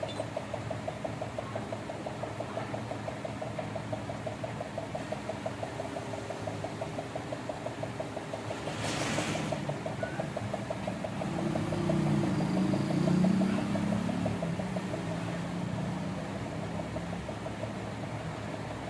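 Steady, rapidly pulsing machine hum, with a brief hiss about nine seconds in and a louder low rumble from about eleven to fourteen seconds in.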